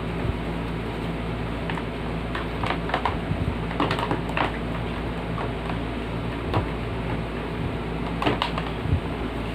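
Scattered clicks and light knocks of hard plastic parts being handled, in two clusters, over a steady low hum.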